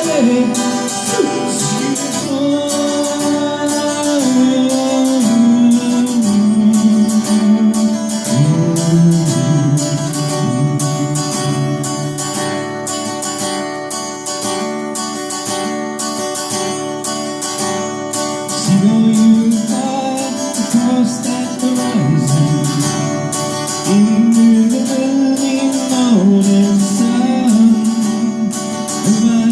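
Song played on strummed acoustic guitar with a singing voice carrying long held notes.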